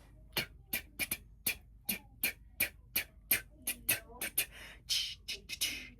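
Beatboxing: mouth-made percussion in a quick, steady beat of sharp clicks and kick-like pops, about three a second, with longer hissing cymbal-like sounds about two-thirds of the way through.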